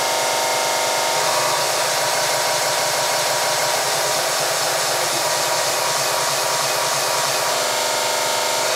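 A loud, steady rushing noise with a constant hum underneath, unbroken and without any beat.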